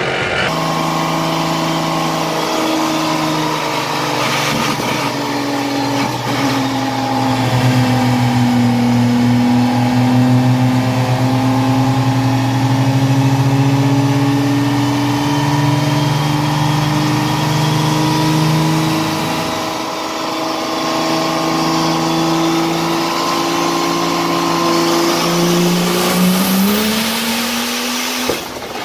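A nearly 3,000-horsepower 6.7-litre diesel truck engine running hard under load on a chassis dyno. It holds one sustained, loud engine note that sags a little, then climbs steeply in pitch near the end as the revs rise.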